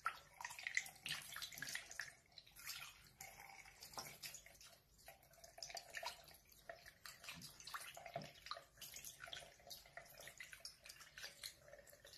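Water from a running bathroom tap trickling and splashing over a small monkey's fur and into the sink as it is washed by hand, faint and uneven.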